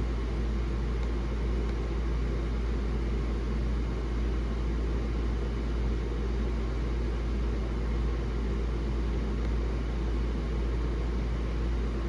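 Steady low machine hum with an even drone, running without change.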